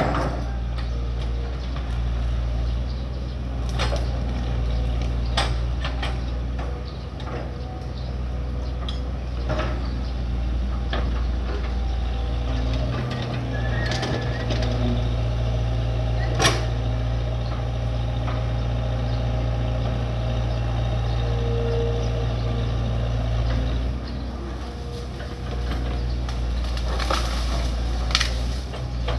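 Excavator's diesel engine running with a steady low drone, its load shifting now and then, with sharp metallic clanks and knocks at intervals from the machine working.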